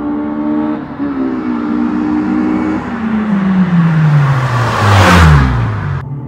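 1999 Honda Civic Si's B16A2 four-cylinder with an aftermarket cat-back exhaust driving past at speed. Its exhaust note falls steadily in pitch as it comes closer, with a rush of tyre and wind noise loudest about five seconds in that cuts off sharply about a second later.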